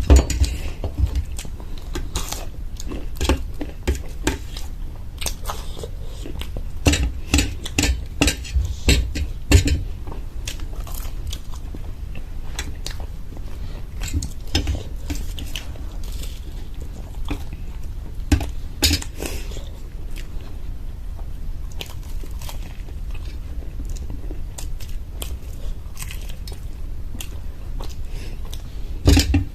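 Close-up chewing and biting into crisp-crusted homemade samosas: crunching bites and wet chewing, with the sharpest crunches clustered about a third of the way in and again past the middle.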